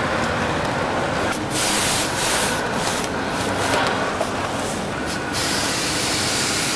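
Crinkling and rustling of metallic foil balloons being handled, over a steady hiss that grows brighter and steadier about five seconds in.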